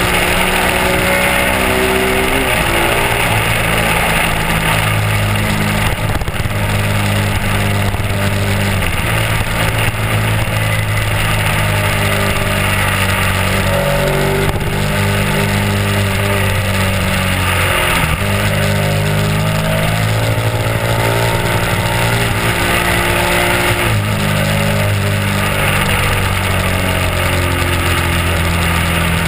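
Honda RC51's V-twin engine running at road speed, its note dropping and climbing again several times, with a steady rush of wind over it.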